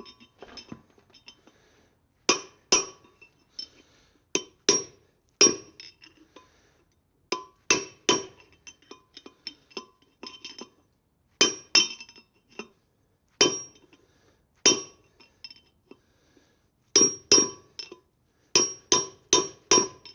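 Hammer blows driving an old wheel bearing race out of a Land Rover Defender 90 hub, metal on metal. The strikes come at irregular intervals, often in quick pairs or threes, and each rings briefly.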